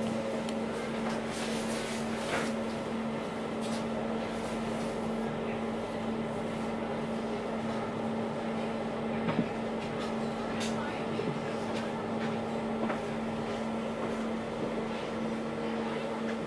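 Steady drone of an express passenger boat's engines, a constant hum with a few faint clicks, the sharpest about nine seconds in.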